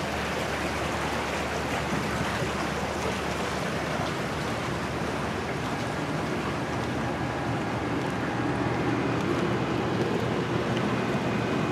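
Creek water rushing steadily through a narrow walled channel.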